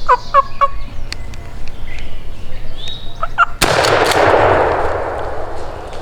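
A wild turkey gobbler gobbles, a quick rattling call, at the start and again just before a single shotgun shot about three and a half seconds in. The shot is sudden and loud and dies away slowly in a long echo.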